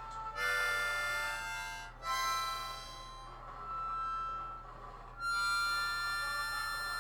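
Long held notes and chords on a reedy musical instrument, in three swells: one about half a second in, one at two seconds, and a longer one from about five seconds in.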